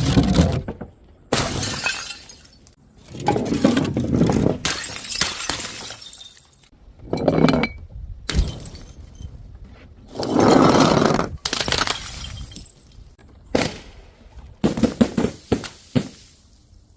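Glass bottles shattering one after another: about seven separate crashes with short gaps between them.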